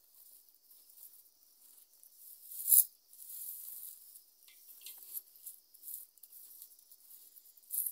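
Dry plucked leaf stems and debris rustling and crackling as hands gather them up off a woven mat, in irregular short bursts with one louder crackle about three seconds in.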